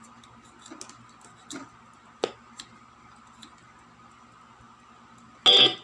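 A few light clicks and taps over a faint steady hum from the powered-up speaker; about five and a half seconds in, the just-repaired Bluetooth speaker blares out a short, loud burst of sound.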